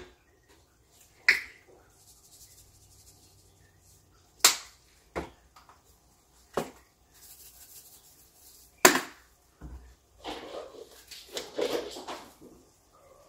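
Kitchen clatter: a handful of sharp clinks and knocks of utensils and spice jars against a stainless steel pot, spaced a few seconds apart, then a couple of seconds of rattling near the end as seasoning is shaken from a shaker jar.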